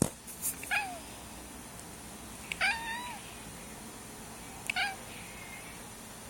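A domestic cat meows three times: a short falling meow, a longer one about two and a half seconds in, and another short one near the end. A brief noisy burst comes at the very start.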